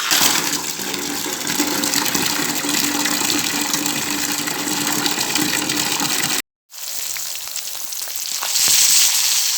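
Water gushing steadily, cut off abruptly about six seconds in by a brief silence, then a different hissing water sound that grows louder near the end.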